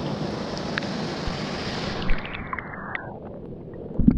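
Rushing water of a waterfall pool that turns muffled over the second half, as the microphone goes under the water. Near the end a loud underwater rumble sets in, with a few sharp knocks.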